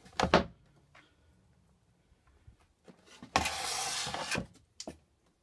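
A short rustling noise lasting about a second, a little past the middle, followed by a faint click.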